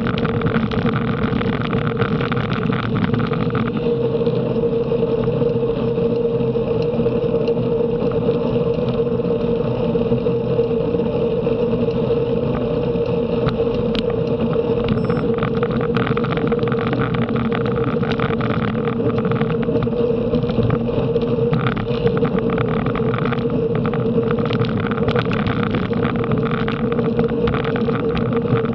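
Steady rush of wind and road noise from riding at race speed, with a constant hum and a few faint ticks scattered through it.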